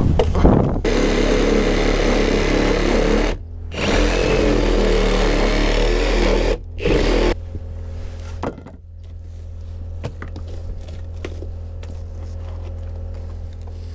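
Reciprocating saw cutting through old, rotten wooden deck planking, running steadily with two brief stops. After about seven seconds it gives way to a much quieter low hum with scattered light knocks.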